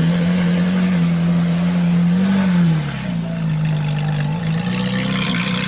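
Racing car engine sound: a steady engine drone with a hiss above it, its pitch dipping briefly about two and a half seconds in and again a little later.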